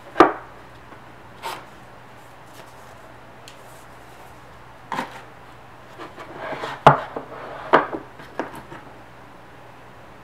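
Hands handling a rigid white cardboard perfume box on a desk: a string of sharp taps and knocks from the box and its lid, with scraping and rustling between about six and eight seconds in as the glass perfume bottle is taken out of its insert.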